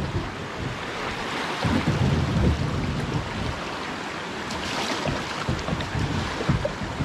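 Flowing river water around a kayak, with wind buffeting the microphone in uneven low rumbles.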